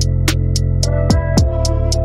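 Background music with a steady beat: quick regular ticking percussion over deep kick drums that drop in pitch, with held chords underneath.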